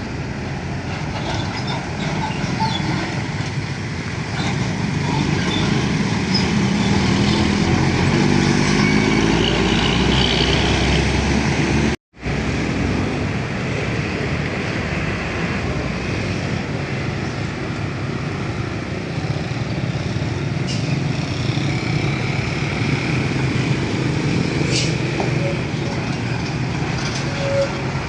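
Heavy truck engine running and revving up, with road traffic noise around it; the sound drops out abruptly for an instant about twelve seconds in, then vehicle and traffic noise go on steadily.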